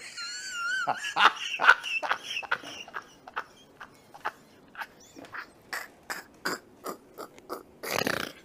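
A man laughing hysterically. It starts with a high, wavering squeal, then breaks into a string of short, separate laugh bursts with gaps between them, and a louder burst comes near the end.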